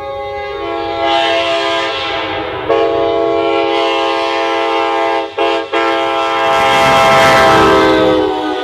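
Multi-chime locomotive air horn sounding a long chord as the train runs by, with two quick breaks just past the middle. The hiss and rumble of the passing train swell under it, loudest near the end.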